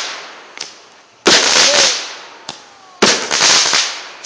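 Consumer aerial fireworks firing shot after shot, about every two seconds. Each shot is a sharp bang followed by a crackling hiss that fades, and faint pops fall between the shots.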